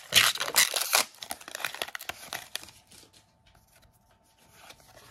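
Foil booster pack wrapper crinkling and tearing as it is pulled open, loudest in the first second and thinning to light rustles, dying away about three seconds in.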